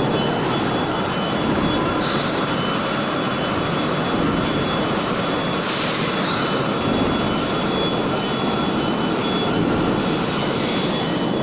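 Automatic fuel-tank washing machine running: a steady mechanical noise with faint whining tones, and brief hisses about two and six seconds in.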